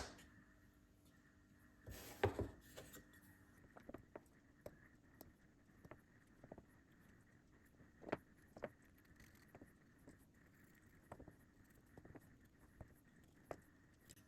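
Faint, scattered clicks and taps of small wooden parts being handled and fitted together, with a short cluster of knocks about two seconds in.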